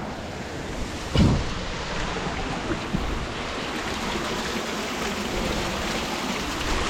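Water rushing and splashing over the rocks of a low-flowing waterfall, a steady even wash, with one short low thump about a second in.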